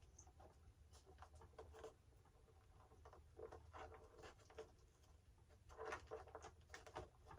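Near silence with faint, scattered rustles and light ticks of hand work: LED wire leads and their plug being pulled through a model jet's foam fuselage.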